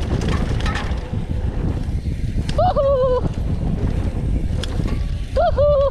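Wind buffeting the microphone and the rumble and rattle of a mountain bike rolling fast down a rough dirt trail. Two brief high, wavering tones cut through, about two and a half seconds in and again near the end.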